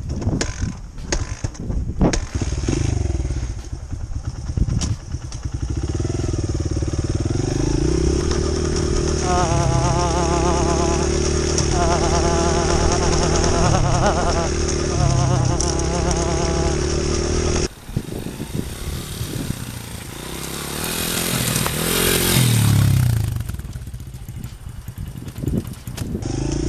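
Honda CRF100F dirt bike's small single-cylinder four-stroke engine running as it rides along a railroad track, with a few knocks from the ties in the first couple of seconds. After a cut about two-thirds of the way in, the bike is heard from beside the track, rising as it approaches, passing and fading away.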